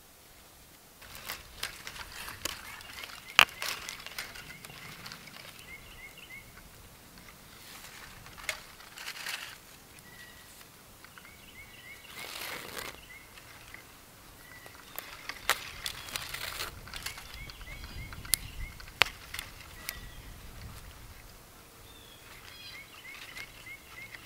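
Hands rustling and tugging a thin cord as an arbor knot is tied around a stick, with scattered sharp clicks, the loudest about three seconds in. Behind it a bird repeats a quick series of high chirps every few seconds.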